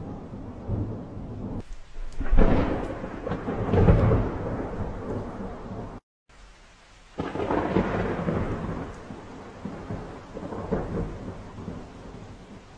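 Thunder rolling and rumbling during a thunderstorm, with rain in the background. The loudest peals come about two and four seconds in; the sound breaks off abruptly near the middle, then another rumble builds and slowly fades.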